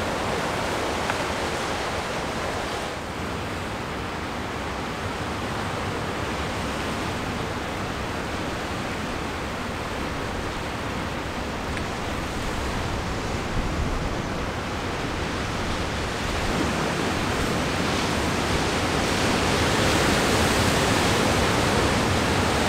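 Steady wash of sea waves breaking on a rocky shoreline, growing a little louder over the last few seconds.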